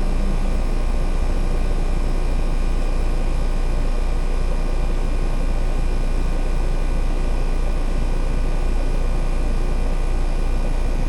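Central air conditioner's outdoor condensing unit running in cool mode, its compressor and condenser fan making a steady drone with a regular low pulsing underneath.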